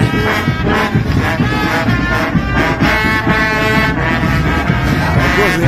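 Marching brass band playing in the street, trombones prominent, a steady loud stream of brass music.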